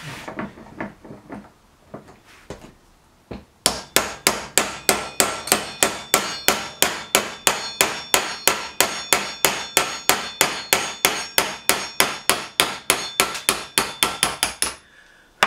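Small hammer tapping on metal parts of a Look Keo 2 Max pedal, a quick steady run of blows about four a second with a short metallic ring. It is the "gentle persuasion" used to knock the pedal apart to get at its bearings. It starts after a few seconds of light handling clicks and stops just before the end.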